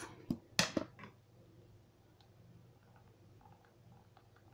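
Faint, irregular ticks of a computer mouse scroll wheel as a document is scrolled, after a brief louder sound under a second in.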